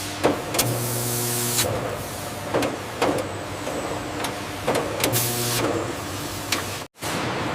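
Factory machinery running with a steady hiss, sharp clicks and clanks at irregular moments, and a short low motor whir that starts and stops twice. The sound cuts out for an instant near the end.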